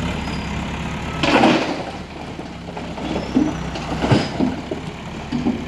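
Heavy diesel machine engine running steadily, with a loud rushing burst about a second in and a shorter clattering burst about four seconds in.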